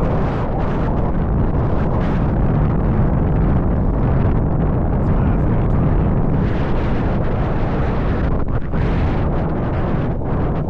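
Wind buffeting the microphone of a handlebar-mounted camera on a moving electric bike: a loud, steady low rumble of wind noise.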